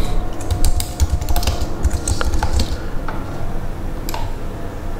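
Typing on a computer keyboard: a quick, irregular run of key clicks that thins out after about three seconds.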